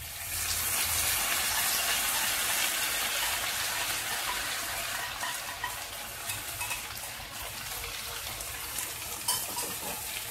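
Sauce poured into a hot wok of prawns and vegetables, sizzling as it hits the pan: the hiss rises sharply at the start and slowly eases as it is stirred in, with a few utensil clicks near the end.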